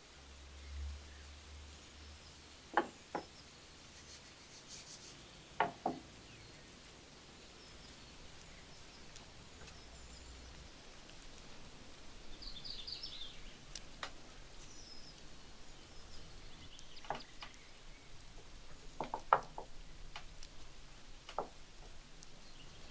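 Scattered sharp knocks and taps of kitchen utensils being handled during food preparation, some in quick pairs, the loudest a little past the two-thirds mark. A bird chirps in a quick short series about halfway through.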